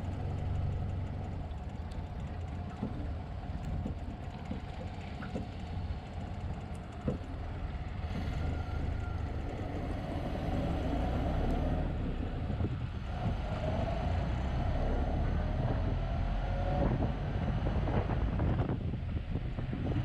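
1929 Ford Model A pickup's four-cylinder engine and drivetrain running down the road, heard from inside the drafty cab as a steady heavy rumble with road and wind noise. Small rattles and clicks come through, and a whining note rises in pitch in the second half.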